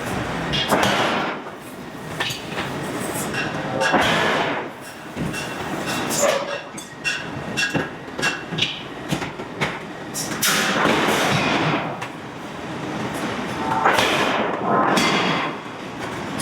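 Hydraulic forging hammer working a steel billet: a run of irregular heavy blows and metallic clanks, with louder noisy surges every few seconds.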